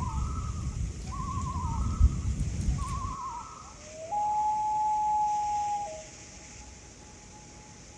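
A night bird calling: three short quavering calls, each wavering quickly and dipping at the end, then one long steady call about four seconds in. A campfire crackles beneath the first three seconds, then stops.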